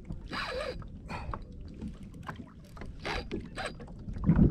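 Spinning reel's drag paying out line in short irregular spurts as a hooked fish pulls against the bent rod. Wind rumble on the microphone rises near the end.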